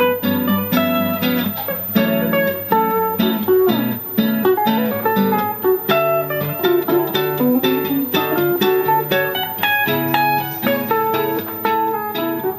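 Guitar played live, a quick run of plucked single notes and chords over low held notes.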